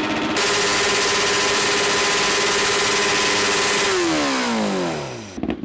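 Big motorcycle engine held flat out at a steady high rev, becoming louder about half a second in; near the end the revs fall away over about a second and a half and the sound stops.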